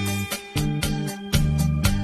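Instrumental electronic organ music with a steady, quick drum beat under a moving bass line and sustained keyboard tones.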